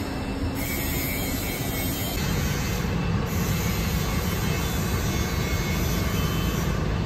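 Steady city street noise, dominated by a low traffic rumble.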